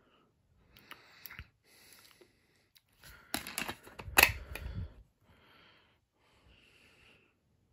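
A DVD being put back into its plastic case and pressed onto the centre hub: light clicks and plastic handling sounds, with a louder cluster about three to five seconds in and the sharpest click as the disc snaps onto the hub.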